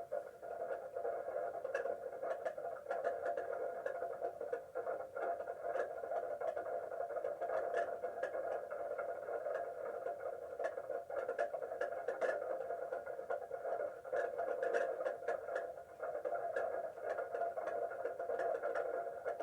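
Heavy rain falling: a steady hiss with many scattered sharp ticks of drops striking.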